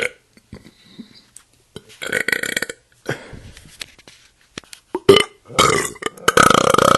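A person belching several times in a row: short burps first, then a long, loud, rattly belch starting about five and a half seconds in.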